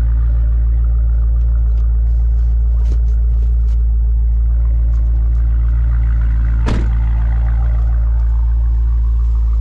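A vehicle's engine and exhaust running with a steady, loud low drone. About two-thirds of the way through there is one sharp click.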